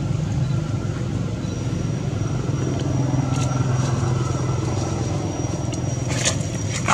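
A motor running steadily with a low, even hum, and a thin high-pitched whine joining about a second and a half in. A few faint clicks come near the end.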